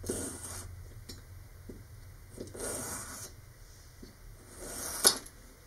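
Fine-toothed razor saw cutting a thin spruce strip in three slow rasping strokes, with a sharp click near the end.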